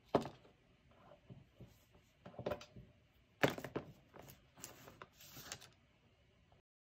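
Faint handling noises as white Lightning cables and a small cardboard cable box are moved about on a desk mat: a few soft taps and rustles, the loudest about three and a half seconds in.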